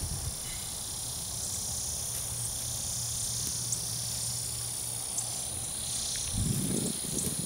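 Steady high-pitched drone of chirring insects, with a short low rustle near the end.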